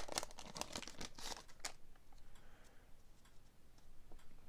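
Baseball card pack being opened by hand: a quick run of light crinkles and clicks from the wrapper and cards for about the first second and a half, then fainter rustling as the cards are handled.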